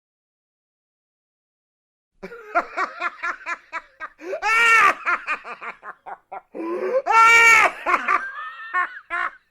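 Baby laughing, starting about two seconds in: a run of quick, high giggles, then two long high-pitched squeals of laughter with more giggles between them.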